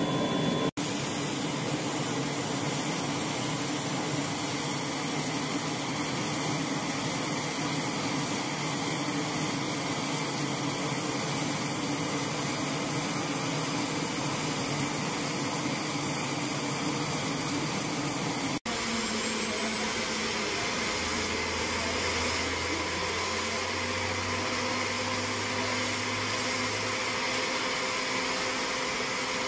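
Steady turbine whine and rush of AH-64 Apache helicopters running on deck. After a cut about two-thirds of the way in, a faint high whine rises slowly and then holds.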